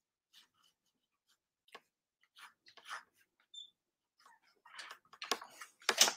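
Fine-tip marker pen scratching short, scattered strokes on sketchbook paper, with louder rubs and rustles of the hand moving across the page near the end.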